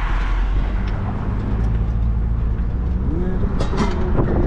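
Car being driven, heard from inside the cabin: a steady low engine and road rumble. A voice-like sound comes in near the end.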